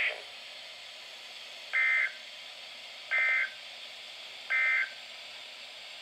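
Three short EAS/SAME data bursts from a Midland NOAA weather radio's speaker, each about a third of a second long and about a second and a half apart, over a faint hiss: the end-of-message code that closes the alert broadcast.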